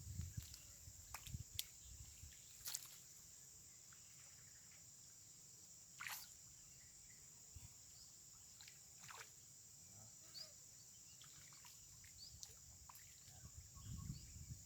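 Faint, steady high-pitched drone of insects, with a few scattered sharp clicks, the loudest a little under three seconds in and about six seconds in.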